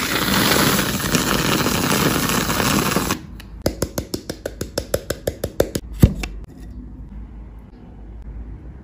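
Whipped cream dispenser hissing as cream is piped out of its nozzle, cutting off about three seconds in. Then a quick run of light taps, about six a second, as matcha powder is sifted over the cream, ending in one firmer knock.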